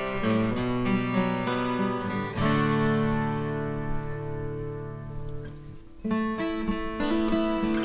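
Breedlove Passport D/Mme mahogany acoustic guitar playing chords, recorded as a blend of its pickup and a microphone. About two and a half seconds in a chord is struck and left to ring, fading for about three and a half seconds before the picking starts again.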